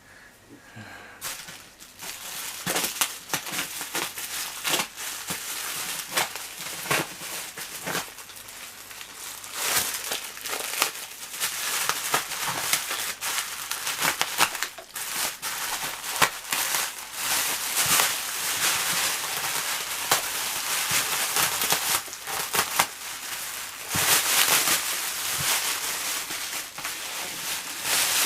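Plastic carrier bag wrapping being crumpled and torn open by hand: a dense, irregular crinkling and crackling that starts a second or two in.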